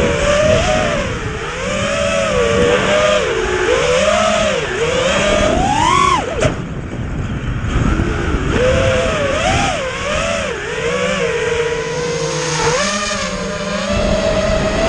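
FPV racing quadcopter's motors whining, the pitch swooping up and down with the throttle over a lower steady hum. About six seconds in the whine climbs sharply and cuts off abruptly, then it returns and wavers again, climbing once more near the end.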